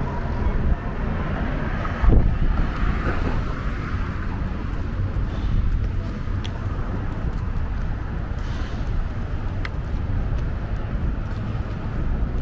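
City street ambience at a downtown intersection: traffic passing, with a steady low rumble and a brief louder swell about two seconds in.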